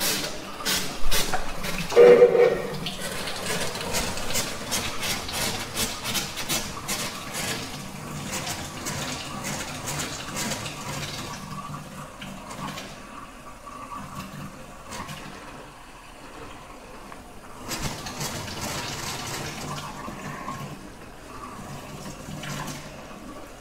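Water running from the bar-sink faucet and draining down the pipes into a Saniflo Sanivite drain pump's tank during its first test run, splashing hardest in the first dozen seconds and swelling again near the end, with a steady low hum underneath. A short louder tone comes about two seconds in.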